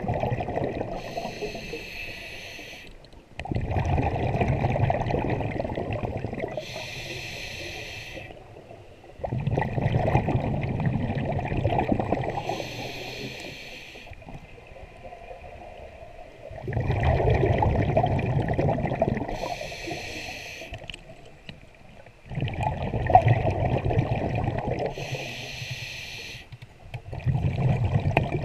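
Scuba diver breathing through a regulator underwater, five breaths. Each breath is a short hiss of inhalation through the demand valve, followed by a louder, bubbling rush of exhaled air that starts suddenly and fades.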